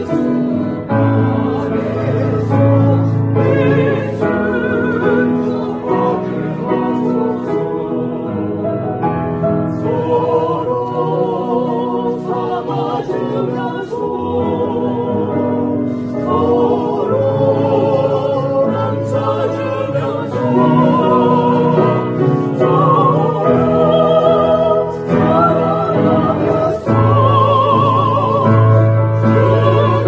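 Mixed vocal quartet, two men and two women, singing a hymn in parts, with vibrato on the held notes.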